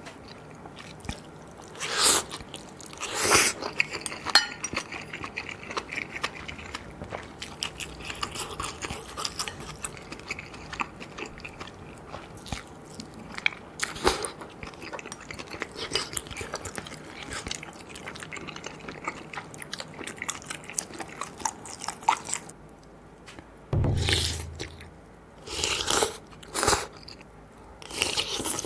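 A person eating maratang: slurping glass noodles and broth and chewing. Loud short slurps come about 2 and 3.5 seconds in and again near 14 seconds, with a run of loud mouthfuls near the end.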